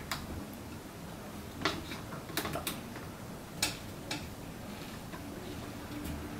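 A handful of sharp, irregular clicks and ticks from hands working the pendant light's ceiling canopy and its hanging fitting as the fixture is screwed further up into the ceiling.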